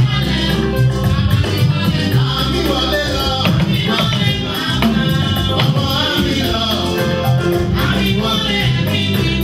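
Upbeat music with singing over a steady bass line and a regular run of percussion ticks.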